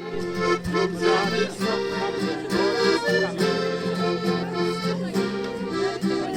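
Instrumental music: held chords that change in a steady rhythm over a repeating bass note.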